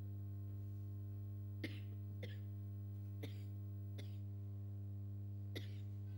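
Steady low electrical hum from the hall's sound system, with five short sharp clicks scattered through it.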